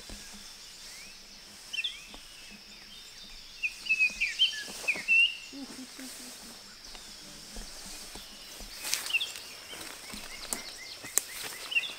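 Small birds calling in short, quick chirps, in a cluster about four to five seconds in and again near the end, over a steady high insect drone. A few scattered rustles and knocks come from movement through the brush.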